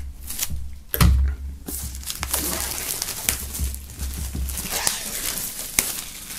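Clear plastic shrink-wrap film being peeled off a cardboard box, crinkling and rustling, with a sharp crackle about a second in and another near the end.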